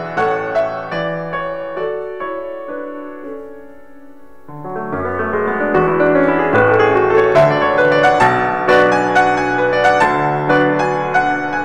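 Background piano music, a gentle piece of single struck notes and chords; it thins out and softens about four seconds in, then swells fuller again.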